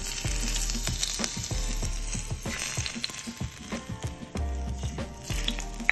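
Hot oil poured over steamed corbina with scallions and ginger, sizzling as it hits. The sizzle is strongest in the first half.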